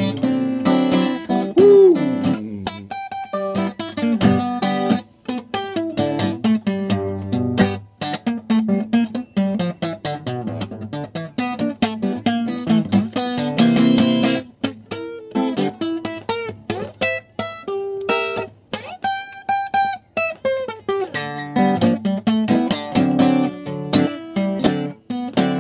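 Acoustic guitar played solo, an instrumental break of quick picked notes and strummed chords.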